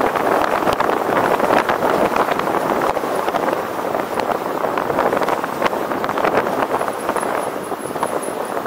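Steady rush of wind and road noise on a moving camera's microphone during a ride, with frequent small knocks and rattles.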